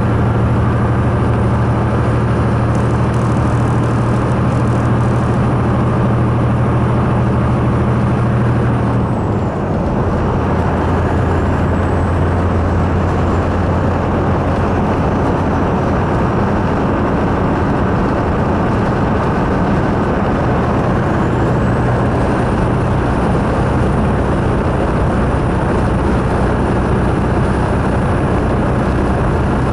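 Semi truck's diesel engine heard from inside the cab while cruising, a steady drone over road noise. About nine seconds in the sound dips briefly and the engine note drops as it shifts up a gear, then the note slowly climbs again later.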